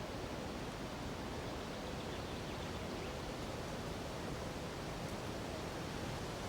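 Steady rushing of a nearby mountain river blended with wind through forest treetops: an even, unbroken noise with no separate events.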